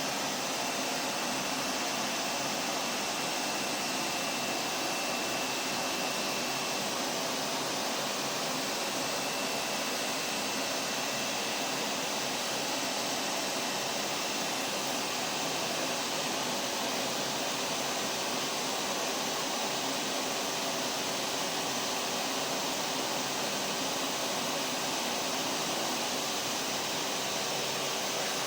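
Vacuum cleaner motor running steadily: an even rushing noise with a faint high whine that drops out briefly about a third of the way in.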